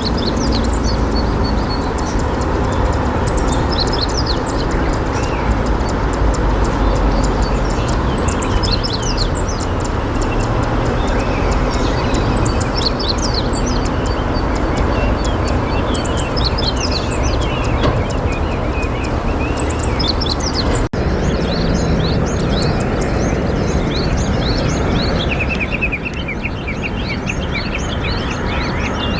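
Steady rush of flowing river water with many small birds chirping and twittering high above it; the sound breaks off for an instant about two-thirds of the way through.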